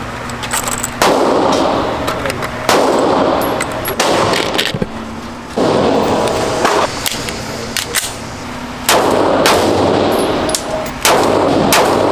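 Gunfire at a shooting range: many sharp shots at irregular spacing, some close together, from more than one gun.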